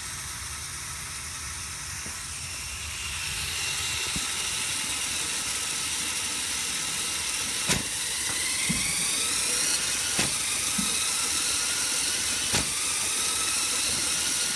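VEX robot's twin flywheel ball shooter spinning with a steady high motor whine and hiss, growing louder about three seconds in. Three sharp clacks about two and a half seconds apart as balls are fired through the flywheels.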